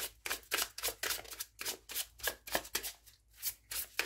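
Veleda oracle card deck being shuffled overhand, a quick run of crisp card slaps, about four a second.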